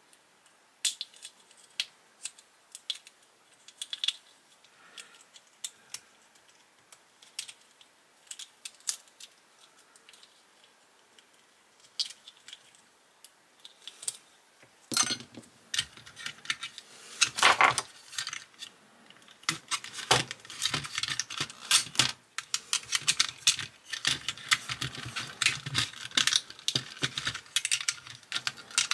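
Small metal and plastic parts of a diecast model car clicking and rattling as they are handled and fitted by hand. Scattered single clicks at first, then denser clicking and rattling from about halfway on.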